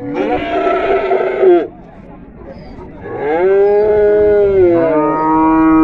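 Cattle mooing: a harsh moo lasting about a second and a half, then about three seconds in a longer, louder moo that shifts pitch partway through.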